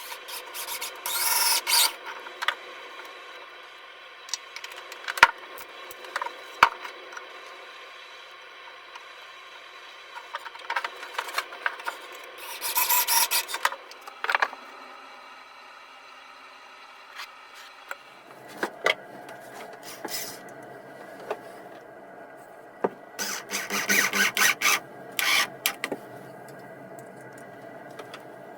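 Hand work on wood: short bursts of scraping and rubbing, with scattered sharp clicks and knocks in between.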